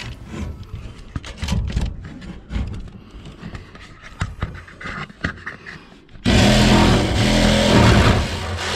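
Light knocks and scrapes as a RIDGID jigsaw is set on the van's steel roof, then about six seconds in the jigsaw starts abruptly and runs loud and steady, its blade sawing through the sheet-metal roof panel.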